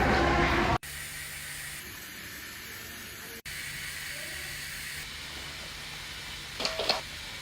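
A steady hiss of rushing air with a faint low hum beneath it, dropping out for an instant twice. A short, louder sound breaks in near the end.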